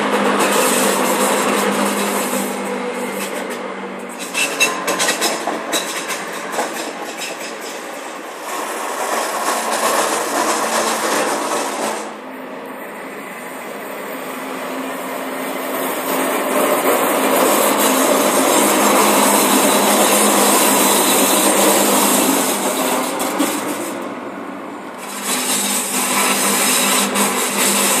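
Regio-Shuttle diesel railcars passing close by, their wheels squealing and grinding against the rails and swelling and fading with each pass. The uploader blames the squeal on poorly maintained track. The sound breaks off abruptly about twelve seconds in and changes again about twenty-five seconds in, as separate passes follow one another.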